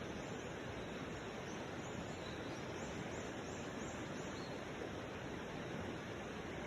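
Steady outdoor background hiss, with a faint run of about seven short, high chirps in the middle.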